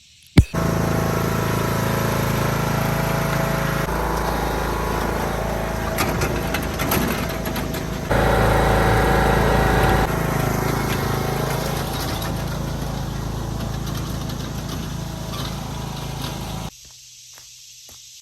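Motor vehicle engine running steadily with a low hum, starting abruptly and cutting off suddenly near the end, in a few segments of slightly different loudness.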